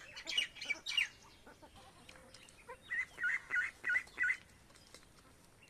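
Domestic fowl calling: a few sharp, high calls in the first second, then a run of five evenly spaced calls, about three a second.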